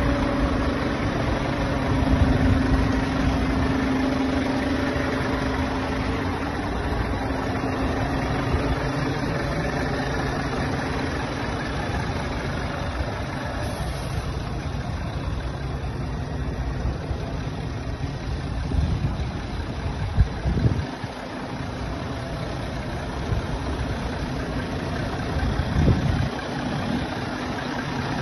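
Scania G440 tractor unit's straight-six diesel engine idling steadily, with a couple of brief low bumps in the second half.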